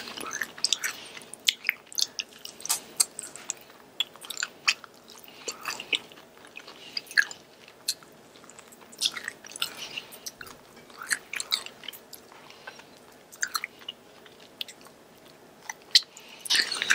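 Close-miked chewing and biting of sauced Korean fried chicken wings: many irregular sharp wet mouth clicks and smacks.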